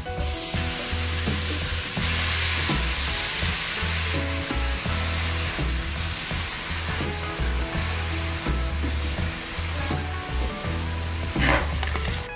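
Vegetables sizzling in a hot metal pan as tomato sauce is squeezed in and stirred through with a spatula, a scrape near the end. Background music underneath.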